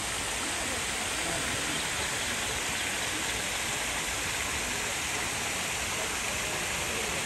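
Steady rush of running water, an even unbroken hiss.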